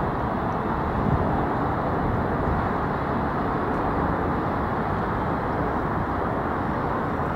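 Steady hum of distant city traffic, an even outdoor noise with no distinct events.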